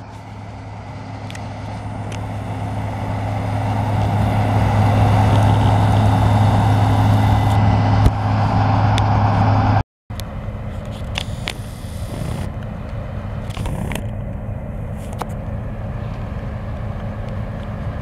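Diesel engines of combine harvesters running steadily in a wheat field, a low hum that grows louder over the first few seconds. After a sudden break about ten seconds in, a combine cutting standing wheat gives a steady engine and machinery drone.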